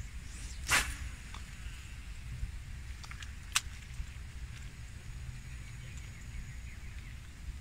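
A fishing rod and line swishing once, short and sharp, about a second in, then a few sharp clicks from the reel near the middle, over a steady low rumble.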